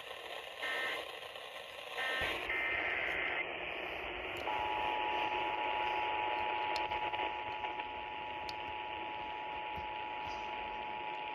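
Emergency Alert System broadcast over radio hiss: short screechy SAME data bursts in the first few seconds, the ones at the very start closing the previous station's test, then from about four seconds in the steady two-tone EAS attention signal (853 and 960 Hz).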